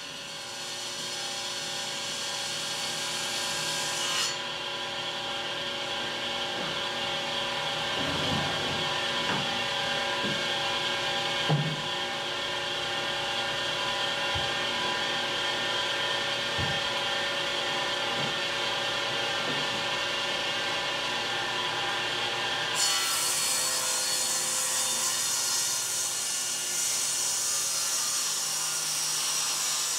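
Table saw running steadily, ripping a board for the first four seconds or so, then spinning free with a steady motor hum while boards are knocked about, and cutting wood again from about three-quarters of the way through.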